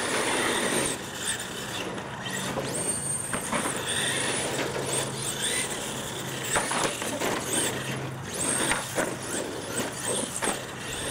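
Radio-controlled monster truck's motor whining in high, rising glides as the throttle is worked, with a few sharp knocks as it hits ramps and lands.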